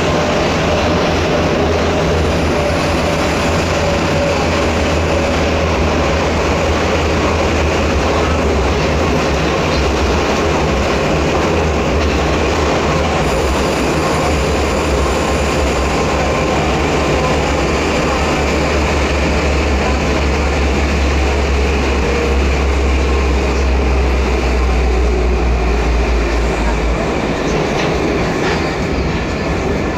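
Prague metro train running through a tunnel, heard from inside a crowded car: a loud, steady rumble of wheels and running gear with a faint whine under it. The deepest part of the rumble drops away near the end.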